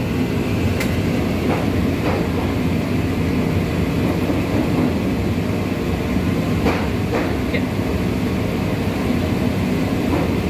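Steady low mechanical rumble of workshop machinery, with a few light knocks and taps.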